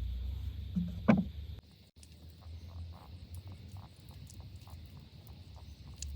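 Forest ambience of insects and frogs: a steady insect buzz, then faint, irregular short calls, with a low rumble underneath. A single sharp knock about a second in is the loudest sound. The background changes abruptly just after it.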